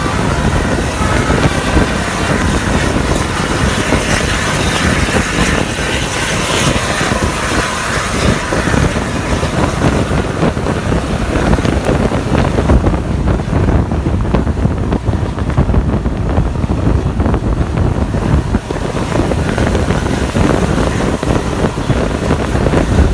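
Loud, steady drone of a coach bus's diesel engine and exhaust driving just ahead, mixed with rushing road and wind noise from the vehicle following close behind. The bus's exhaust is very loud.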